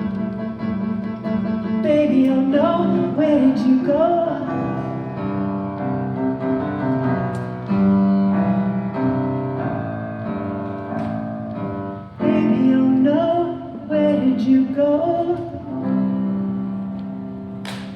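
Live band music with no words: keyboard chords and a wavering melodic line playing out the end of a song.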